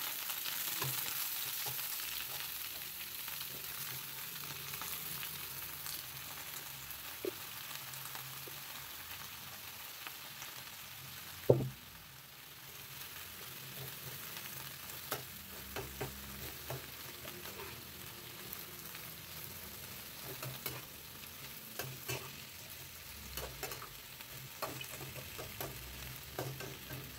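Chopped cabbage sizzling in a frying pan as a metal spatula stirs it, scraping and tapping the pan now and then. One sharp knock about halfway through.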